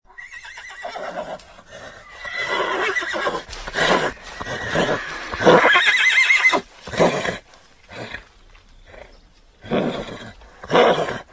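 Horse neighing: a long whinny of about six and a half seconds, its pitch quavering at its loudest point near the end, followed by four short bursts.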